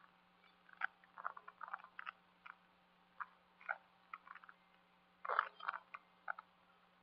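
Irregular short clicks and crunches over a faint steady hum, the loudest cluster a little after five seconds in.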